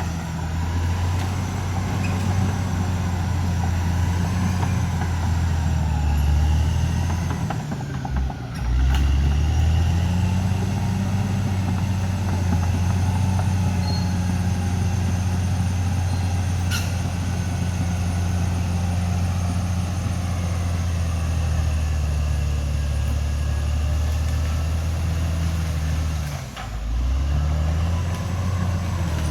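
CAT D6R XL bulldozer's diesel engine running steadily under load, with a faint high whine over it. The engine note dips briefly about eight seconds in and again near the end, then picks back up.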